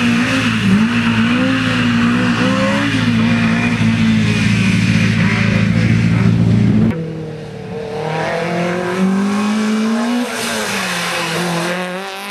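Race-prepared Simca coupé's engine revving hard as the car launches from the slalom start and pulls away. About seven seconds in it cuts to a black Suzuki Swift slalom car's engine, revving up and down repeatedly.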